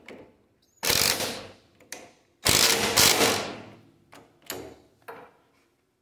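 Cordless impact wrench running down the bolts of a front disc brake caliper bracket: two long runs of rapid hammering, about a second and a second and a half, then two short bursts near the end as the bolt seats.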